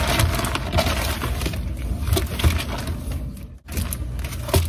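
Plastic packaging crinkling and rustling with sharp crackles as a parcel of clear plastic binder sleeves is unwrapped and handled. The sound briefly cuts out about three and a half seconds in.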